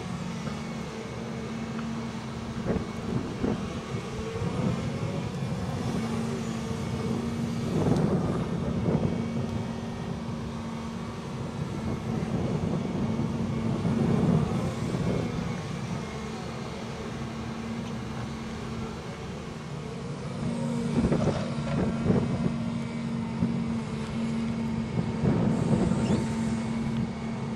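Volvo ECR235EL crawler excavator running steadily while digging and dumping soil. The diesel hum holds throughout, and several louder surges come as the boom and bucket work under load.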